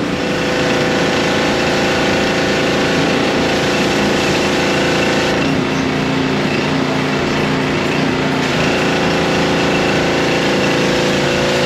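Small engine running steadily, its pitch shifting about five seconds in and again near eight and a half seconds.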